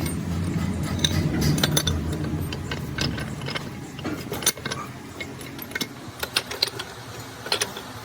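Metal parts and tools clinking and clanking in a string of sharp, irregular clicks, over a low machine rumble that fades out about halfway through.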